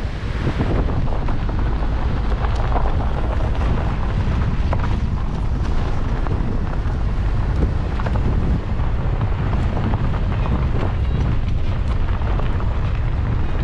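Steady rushing roar of a waterfall mixed with heavy wind rumbling on the microphone, with no break.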